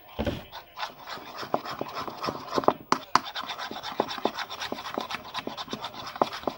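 Glue slime being stirred in a bowl as activator is mixed in: a knock at the start, then repeated sticky scraping and clicking strokes, about two or three a second.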